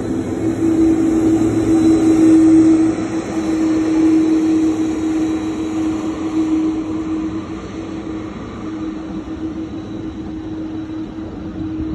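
Airliner engines running on an airfield: a steady drone with one held tone over a rumble. It is loudest in the first few seconds and eases off after the middle.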